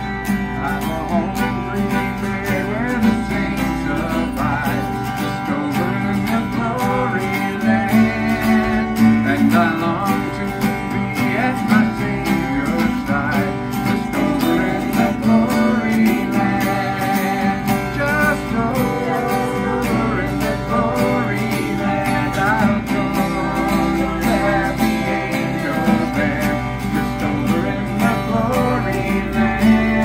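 Live acoustic song: two acoustic guitars strumming together with a bowed fiddle and a man singing.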